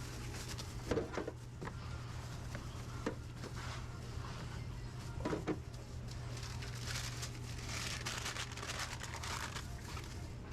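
Commercial kitchen ambience: a steady low hum of kitchen equipment with a few sharp knocks and clatters of utensils and pans, two close together about a second in and another about five seconds in.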